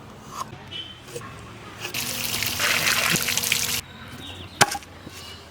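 Water poured out in a steady splashing stream for nearly two seconds, starting about two seconds in and stopping abruptly, followed by a single sharp knock.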